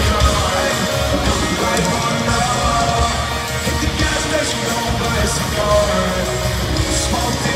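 Live rock band playing loudly through a concert sound system, with electric guitar and drums, heard from within the crowd.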